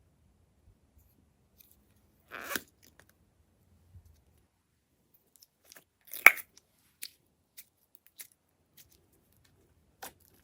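Sparse handling sounds while making slime: a short rustle about two seconds in, a sharp crunch or snap about six seconds in, and a few small clicks after it.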